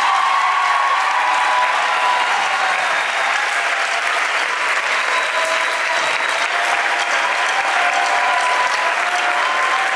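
Audience applauding steadily, with voices cheering and shouting over the clapping.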